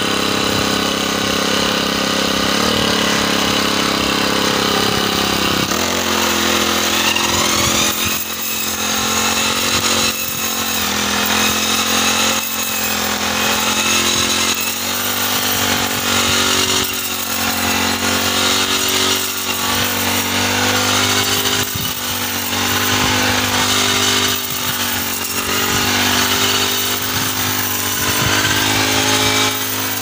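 Backpack petrol brush cutter with a wheat-reaper attachment revving up over the first few seconds, then running at high speed while cutting standing wheat, its engine note dipping and recovering about every two seconds.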